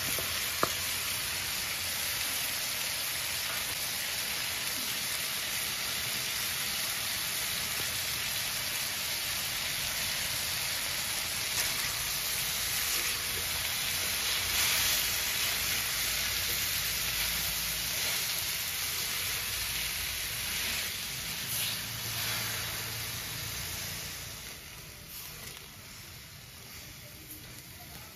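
Bitter melon, salted egg, tomato and onion sizzling in oil in an aluminium wok as they are stirred with a spatula, with a single sharp knock about half a second in. The sizzle grows quieter over the last few seconds.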